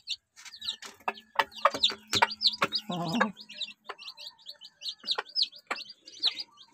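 Newly hatched chicks peeping over and over, with a mother hen's low cluck about three seconds in and sharp taps of pecking at grain on a board.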